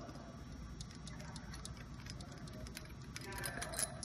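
Faint metallic clicking and ticking as loosened bolts are turned out of a hydraulic vane pump's rear cover by hand, the clicks coming thicker and a little louder near the end.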